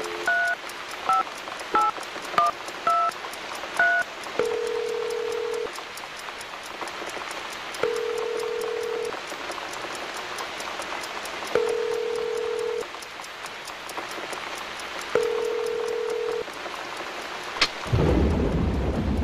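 Push-button telephone being dialled: about six short key beeps in the first four seconds, then the ringback tone of the line ringing at the other end, four single-pitch rings about three and a half seconds apart, over a steady hiss. Near the end a click and a sudden low rumble.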